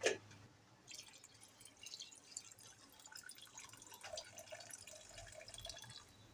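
Pot of rice simmering in coconut milk, bubbling and popping with a faint, dense crackle, after a single sharp click right at the start.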